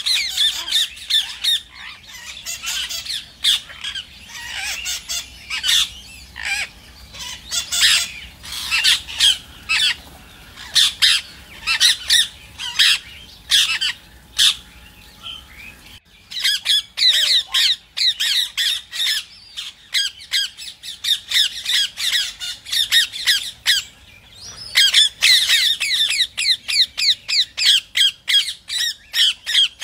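Rose-ringed (ring-necked) parakeets calling: fast strings of short, high squawks, with a brief break about halfway through.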